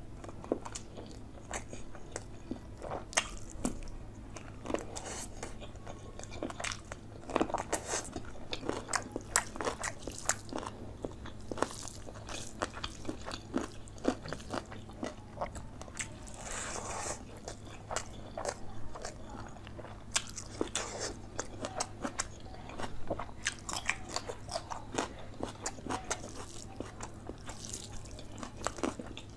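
Close-up eating sounds of chicken leg curry and rice eaten by hand: biting and chewing, heard as an irregular run of small clicks and crackles. A steady low hum runs underneath.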